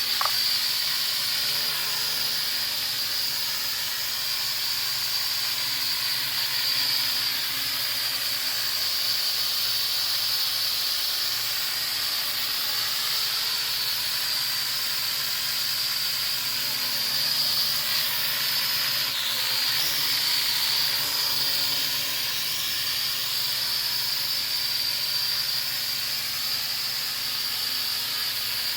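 Small budget toy quadcopter hovering: its little motors and propellers give a steady high whine over a rushing hiss. The whine dips and wobbles briefly about two-thirds of the way through as the drone corrects itself.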